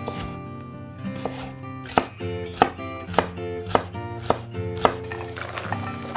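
Chef's knife chopping celery on a wooden cutting board: a steady run of sharp cuts, a little under two a second.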